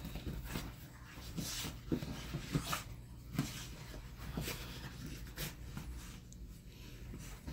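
Mini dachshund scrambling over leather couch cushions: irregular thumps of paws and scratchy rustling of the cushions and blanket.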